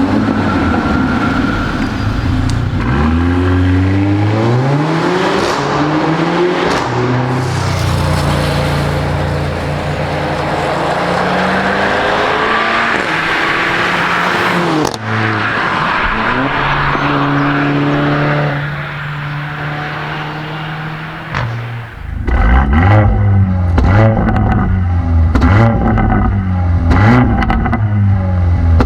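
Mercedes-AMG CLA 45's turbocharged four-cylinder engine and exhaust accelerating hard, its pitch climbing and then stepping down at each gear change. In the last several seconds the engine is revved up and down quickly, with sharp cracks from the exhaust.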